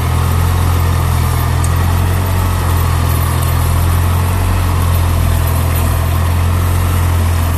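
Yanmar GC70 rice combine harvester's engine running steadily with a deep hum as the machine drives slowly on its crawler tracks.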